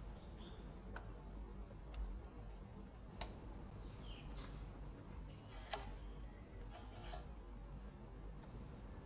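Small, sharp clicks and taps from a die-cast metal model car's doors and hinges being handled, a handful of separate clicks with the loudest about three and six seconds in.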